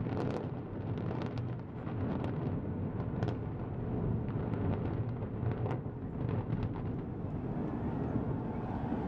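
Deep, continuous rumble of a high-rise tower collapsing in a controlled demolition, with scattered sharp cracks throughout.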